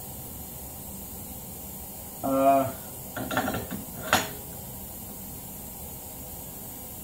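Metal wheel hub being slid onto a splined ATV rear axle shaft: a few brief scrapes, then one sharp metallic clink about four seconds in, over a steady low hiss.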